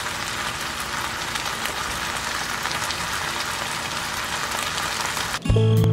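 Shrimp pilaf simmering in a frying pan: rice, shrimp and vegetables bubbling in broth with a steady, fine crackling sizzle. Loud music cuts in abruptly near the end.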